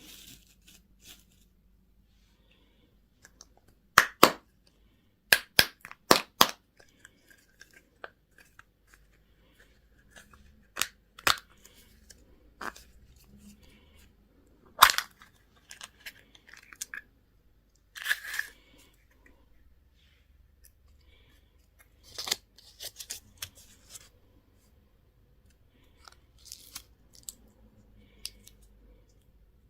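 Plastic candy and toy packaging being handled and opened: a series of sharp snaps and cracks, several in quick pairs, with softer crinkling and tearing of wrappers between them.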